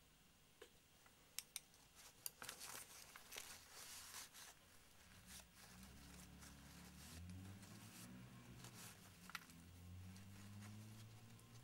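Faint crinkling and rustling of tissue paper being handled, after a few light clicks of small items on a workbench. A faint low hum that wavers in pitch comes in about halfway through.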